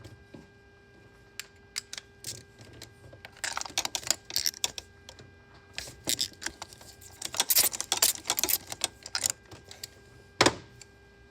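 Metal hand tools clicking and clattering as they are handled, in irregular flurries, over a faint steady hum.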